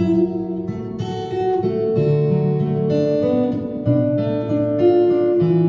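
Acoustic guitar strummed live, playing chords that change about every second, with no singing.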